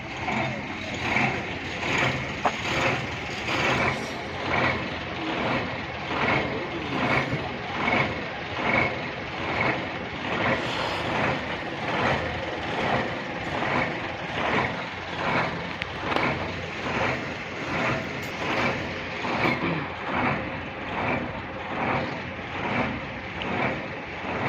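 Truck running with a reversing alarm beeping steadily, about once a second.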